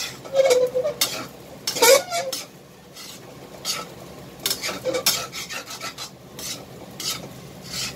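Metal spatula scraping and clanking against a stainless steel pan as fried rice with vegetables is stirred and tossed, in irregular strokes over a faint sizzle. There are two short ringing clanks in the first two seconds.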